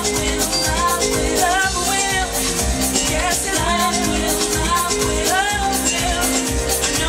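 A woman singing live into a handheld microphone over house music with a steady beat, her voice gliding up and down in long sung phrases.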